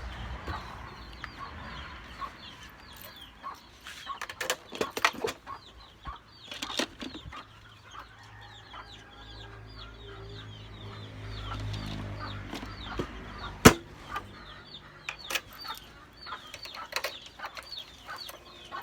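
Chickens clucking, with scattered sharp knocks and clanks and one loud strike about two-thirds of the way through.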